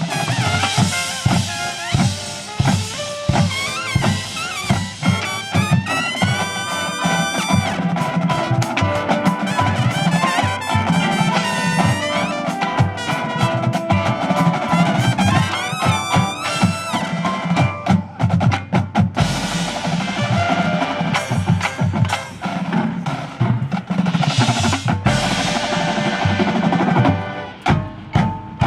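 Music with drums and percussion under pitched instruments, with rising pitch sweeps a few times.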